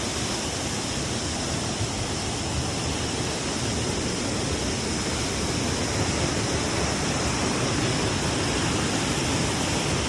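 Waterfall crashing: a steady, even roar of falling water, growing slightly louder toward the end.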